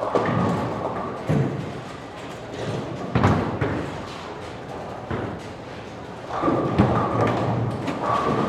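Bowling alley: balls rolling down the lanes with a steady rumble, broken by several sudden crashes and clatters of pins. The crashes come at the start, about a second in, about three seconds in, and near the end.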